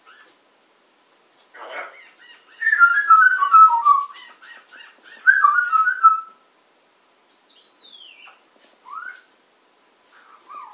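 Pet parrot whistling: two quick runs of falling whistled notes, followed by a few single sliding whistles, after a short harsh burst near the start.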